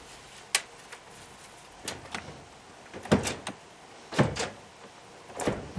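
Steel tool chest drawers sliding open and shut: a sharp click about half a second in, then four sliding rumbles that each end in a metal knock.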